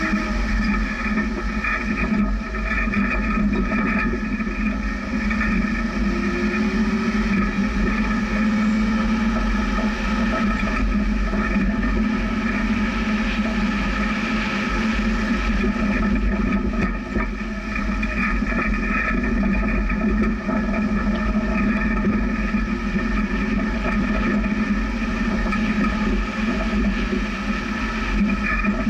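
Jeep driving along a dirt trail: a steady engine drone over a heavy low rumble of the vehicle.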